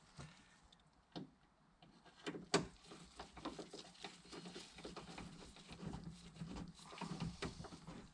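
Scattered light clicks, ticks and scrapes of a hand screwdriver and screws as the window motor's screws are driven in and tightened inside the car door, with one sharper knock about two and a half seconds in.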